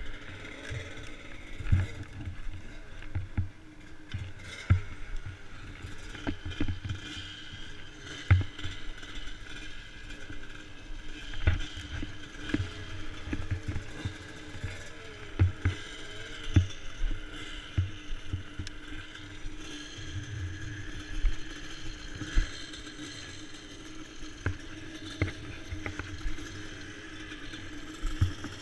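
Irregular knocks and rattles of a dirt bike being handled and rolled over rough dirt ground, under a faint steady hum.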